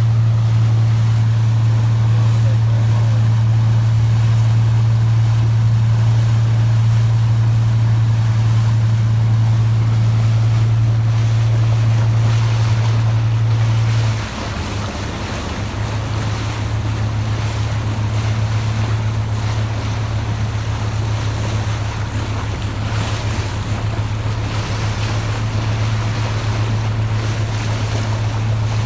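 Boat engine running with a steady low drone, over wind and water noise. About halfway through the drone dips briefly, then comes back slightly wavering.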